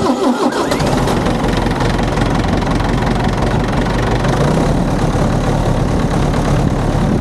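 International Harvester 584 tractor's diesel engine idling steadily.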